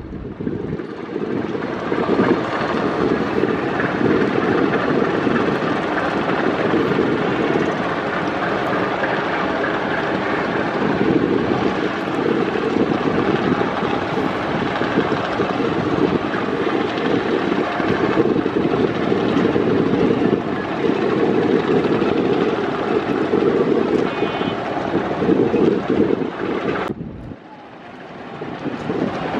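Steady rumble of wind on the microphone over the drone of a river launch's engine, heard from aboard a moving vessel, with a brief sudden drop near the end.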